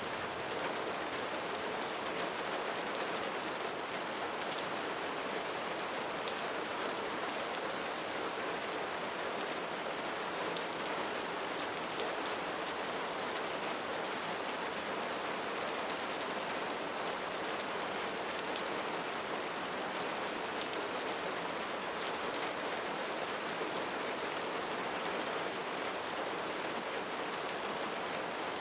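Steady rain falling on leaves, an even hiss of rainfall with the small ticks of single drops scattered through it.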